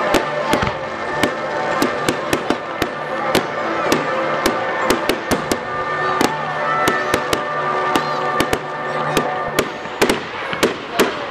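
Fireworks display: a rapid, irregular string of sharp bangs and crackles from aerial bursts going off one after another.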